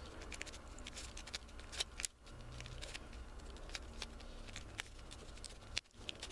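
Shengshou mirror cube, a 3x3 shape mod, turned by hand in quick runs of moves for a superflip: irregular plastic clicks and clacks of the layers, the cube well lubricated. The turning pauses briefly about two seconds in and again near the end.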